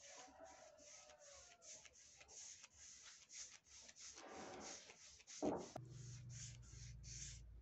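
Faint scratchy strokes of a brush spreading finish over a trembesi wood slab, repeating evenly about two to three times a second. A knock about two thirds through is followed by a low hum.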